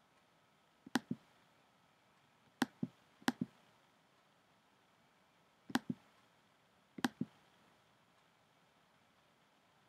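A computer's pointer button clicked five times, each a sharp press followed closely by its release.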